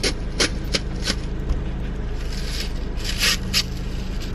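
Short scraping and rubbing strokes, a few near the start and a longer cluster about three seconds in, over a steady low hum.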